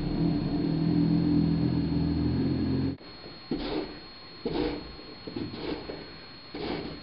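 Small snowblower running steadily, then cutting off suddenly about three seconds in. After it, four scrapes of a snow shovel pushing through snow, about one a second.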